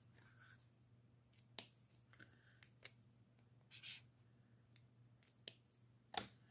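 Faint handling of dual-tip brush pens: a few sharp clicks as caps and pens are handled, and a short soft scratch of a pen tip stroking across paper.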